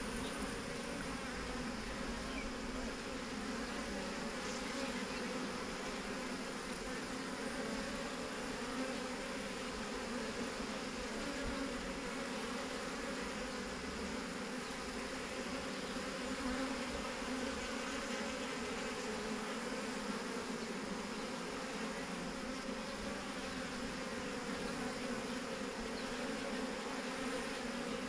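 A honeybee swarm buzzing as one steady, dense hum of many wings while the bees make their way into a new hive box.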